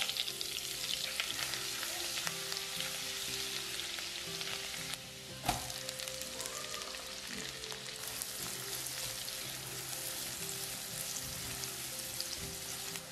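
Minced garlic and then chopped onion sizzling in hot butter and oil in a nonstick wok, loudest in the first few seconds. There is a single sharp knock about five and a half seconds in, and a spatula stirs the pan near the end.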